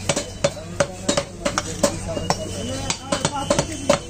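A butcher's knife chopping through beef onto a wooden stump chopping block: a dozen or so sharp knocks at a quick, irregular pace.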